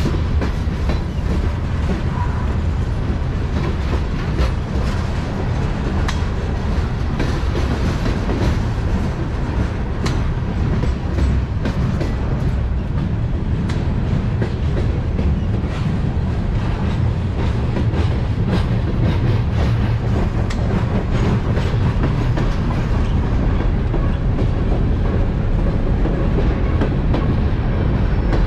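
Freight train of covered hopper cars rolling past at close range: a steady low rumble of wheels on rail, with irregular clicks and clacks as the wheels pass over rail joints.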